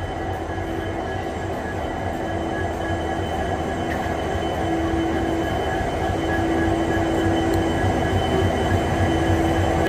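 Indian Railways diesel locomotive idling at a standstill: a steady low engine rumble with a steady whine over it, slowly getting louder.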